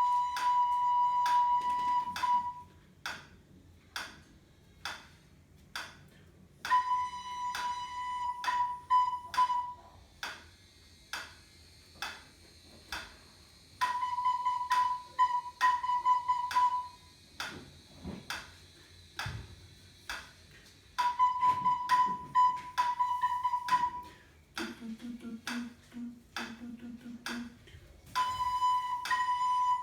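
A recorder plays the note B in short phrases of long and short notes, each about three seconds long, with a pause of about four seconds after each for the student to echo it. A metronome ticks steadily throughout.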